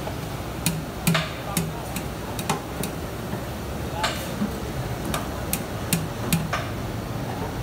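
Sharp, irregular clicks and knocks of cooking utensils at a street food stall, about a dozen over several seconds, over a steady background noise.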